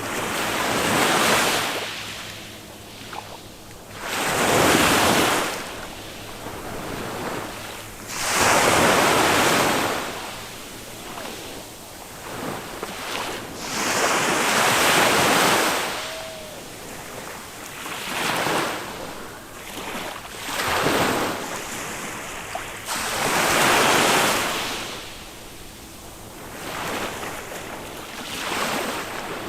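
Small waves of a calm Mediterranean sea breaking on a sandy beach, one after another about every three to four seconds, each a swell of rushing surf that fades away again.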